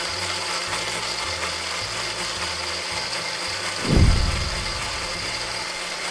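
Battery-powered toy blender running with a steady whirring buzz and a faint high whine. About four seconds in, a short low thump sounds.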